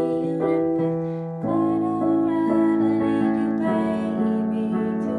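Piano being played: slow, sustained chords with a melody over them, fuller and louder from about a second and a half in.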